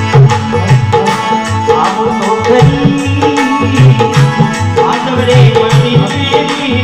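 Dholak drumming in a steady rhythm of deep bass strokes with sharper treble strokes, under sustained harmonium notes: the instrumental accompaniment of a folk devotional song.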